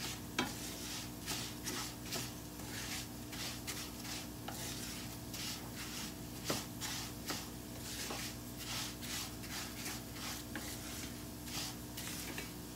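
Dry rice being toasted in a nonstick frying pan, stirred and scraped with a spatula: a scraping rustle with each stroke, about one to two strokes a second, over a light sizzle, with now and then a sharper tap of the spatula on the pan.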